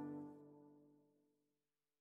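Background music: a held chord fades out within the first half second, then near silence.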